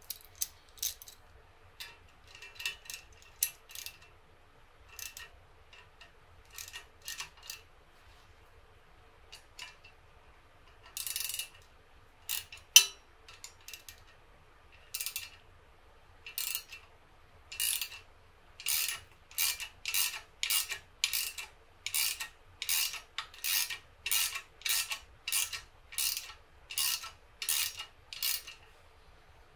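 Metal tool parts clinking as they are handled and fitted, then a socket ratchet wrench clicking in a steady run of short strokes, about two a second, as it turns the threaded puller of a bearing tool to draw a spherical bearing into its housing.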